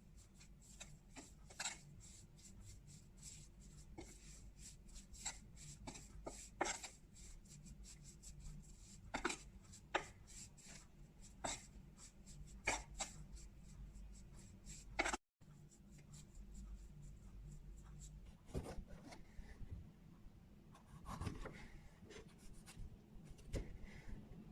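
Knife cutting food on a cutting board: irregular sharp taps and clicks of the blade meeting the board, with some rubbing and scraping. The sound drops out completely for a moment about two-thirds of the way through.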